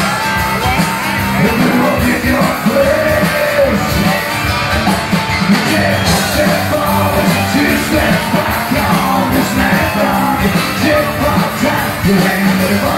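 Live rock band playing, with a man singing into the microphone over amplified acoustic and electric guitars.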